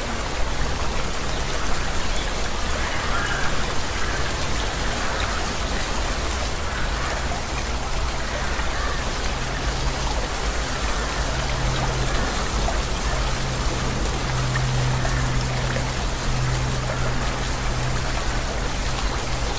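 Steady rain, an even hiss of falling raindrops, with a low steady hum underneath that grows stronger in the second half.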